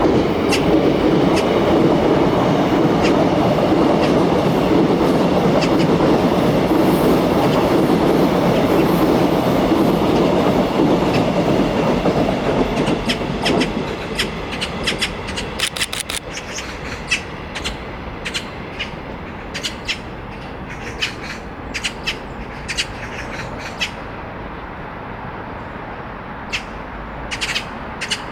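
Korail Line 4 electric commuter train running on the rails: a loud, steady rumble for about the first half that then falls away, followed by a quieter stretch of many sharp clicks.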